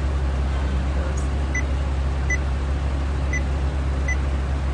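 Four short, high beeps from an aftermarket touchscreen car stereo head unit as its screen is tapped, over a steady low hum from the car.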